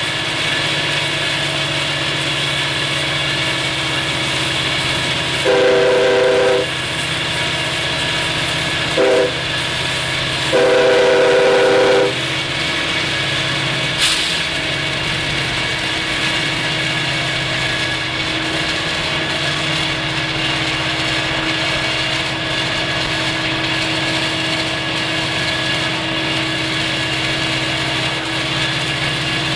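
Florida East Coast Railway diesel locomotives rumbling steadily as they pass close by. The chime air horn sounds a long blast, a short one and a long one, finishing the long-long-short-long grade-crossing signal, and the engine drone carries on as the train rolls past.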